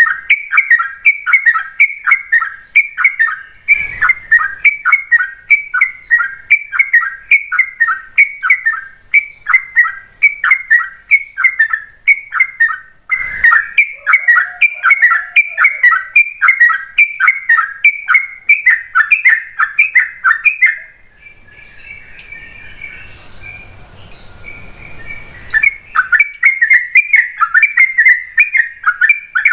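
Yellow-vented bulbul (trucuk) singing a rapid, unbroken run of short downward-sliding notes, about three a second. About two-thirds of the way through it stops for roughly five seconds, then starts again.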